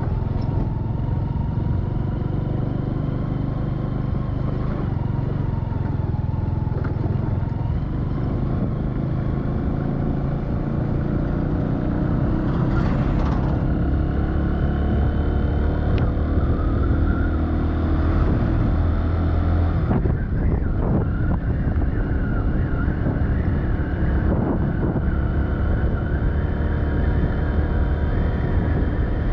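Motor vehicle engine running steadily on the move, with heavy low road and wind rumble. The engine note shifts and climbs somewhat partway through.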